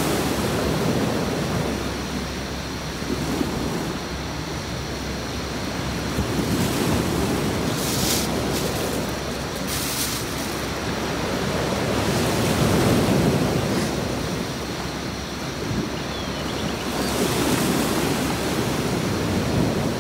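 Sea waves washing onto a beach, the surf swelling and falling away about every five to six seconds, with brief hissing surges as the water runs in.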